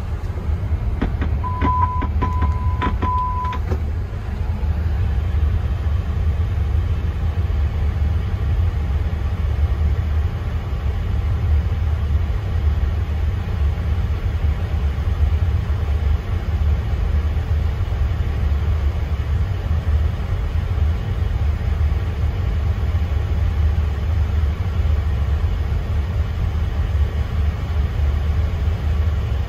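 Steady low rumble in a Boeing 777-300ER cockpit with the auxiliary power unit running at full speed. Three short, high beeps and a few clicks come between about one and four seconds in.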